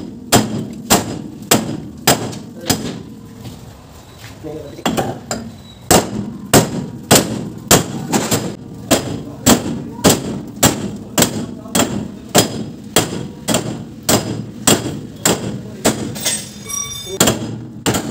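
Steel sledgehammer blows on the pin end of a dump truck boom's hydraulic cylinder, about two strikes a second, with a pause of over a second near the start. The blows are knocking out a worn pin and bushing from the cylinder mount, and a brief metallic ringing follows near the end.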